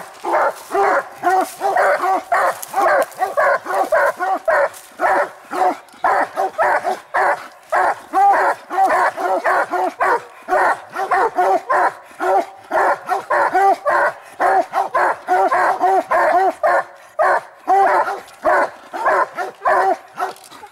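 Two Treeing Walker coonhounds barking treed at the base of a tree, a steady, rapid string of overlapping barks at about three a second, the hounds signalling that they have their quarry up the tree.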